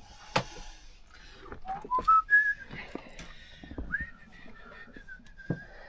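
A person whistling a few notes that climb in steps and then hold a high note with small wobbles. Sharp clicks and knocks of handling sound alongside, the loudest about two seconds in.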